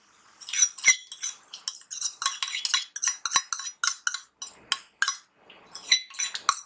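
A metal spoon clinking and scraping rapidly against a steel bowl, several strokes a second, as cream is scooped out into a pan, with a short pause about five seconds in.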